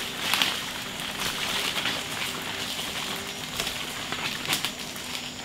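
Rainforest ambience: a steady high hiss with many scattered crackles and clicks, and a few bird calls.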